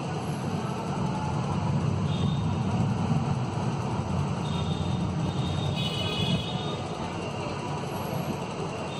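Thunderstorm ambience: a steady low rumble with a fainter hiss over it, and a few faint high tones about six seconds in.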